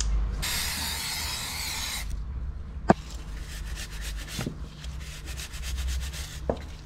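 A rag rubbed hard over the sprockets of a rusty bicycle freewheel by gloved hands, with a loud hiss for about a second and a half near the start. A few sharp metal clicks follow, and faint quick ticking runs through the second half.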